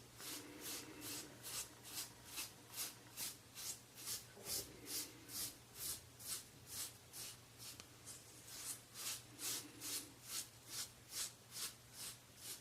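Rockwell 6C safety razor with a SuperMax Blue Diamond blade shaving seven days of stubble off a scalp slicked with hair conditioner: short scraping strokes in quick succession, about two to three a second.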